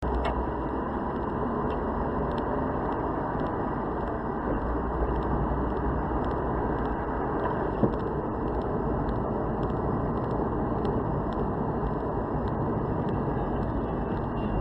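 A car driving, heard from inside the cabin: a steady rumble of engine and tyre noise, with a single short knock about eight seconds in.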